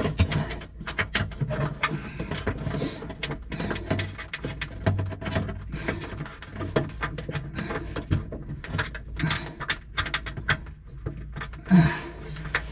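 Irregular clicks, taps and light knocks of hand tools and small parts being worked while a bushing is fitted on a Cessna 150's fuel shutoff valve installation.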